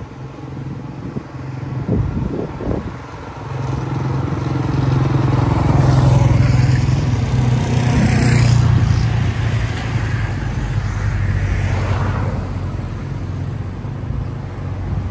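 Motor vehicles travelling with a passing group of road racing cyclists go by close to the road, engine and tyre noise building to a peak about six to nine seconds in, then fading.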